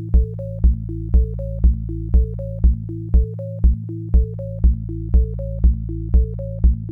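Electronic dance music: a steady kick drum at about two beats a second under a repeating synth arpeggio and a held bass note.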